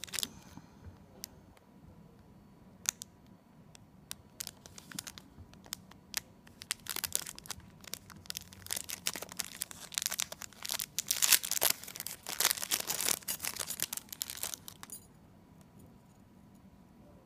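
Small clear plastic packaging bag crinkling and rustling in the hands as it is torn open to take out a metal keychain. A few scattered light clicks come first, then a long spell of dense crinkling that stops near the end.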